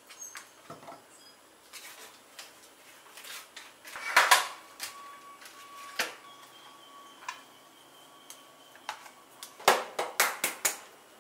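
Kitchen handling sounds: scattered light clicks and knocks of eggs and a plastic egg tray being handled, with a louder clatter about four seconds in and a quick run of sharp clicks near the end.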